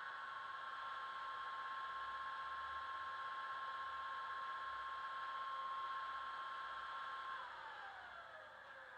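Class 47 diesel sounds from a DCC sound decoder played through a small double iPhone speaker in a model locomotive. A steady whine holds, with a faint low engine rumble beneath it, then drops away in pitch about seven seconds in.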